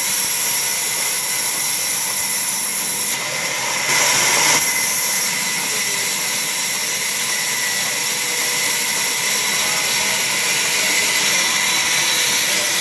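Sawmill band saw running and cutting lengthwise through a timber plank fed by hand, a steady high-pitched whine with hiss. It drops off briefly about three seconds in, then comes back louder.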